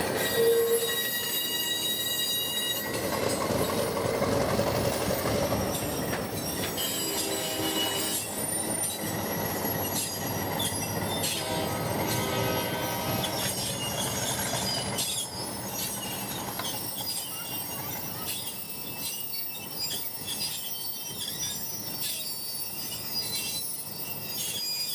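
Passenger cars rolling slowly past on steel wheels, with a steady rumble and the wheels squealing against the rails in thin high tones that come and go.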